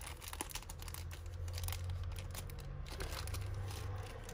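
Small plastic jewellery bags crinkling as they are handled, with a few light clicks of small jewellery pieces, busiest in the first couple of seconds.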